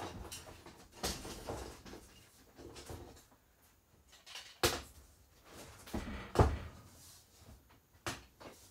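Thin wood ceiling panel being handled and test-fitted against the ceiling framing: scattered knocks, bumps and scrapes, the loudest a bit past six seconds in.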